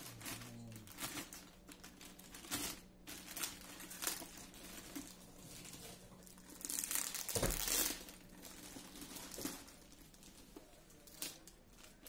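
Thin clear plastic wrapping crinkling and rustling as it is pulled and worked off a plastic toy helmet. The crinkling comes in irregular handfuls and is loudest a little past the middle.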